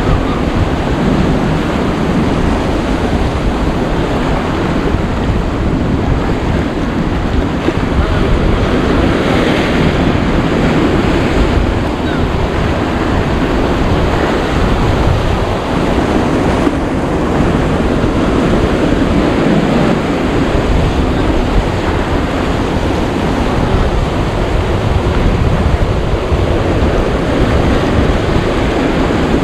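Surf breaking and washing over rocks along a rocky shoreline, a steady crashing wash, with wind buffeting the microphone.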